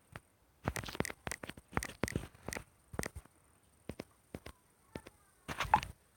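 A string of quick, irregular taps and clicks, several to the second at first, then sparser, with a louder cluster near the end.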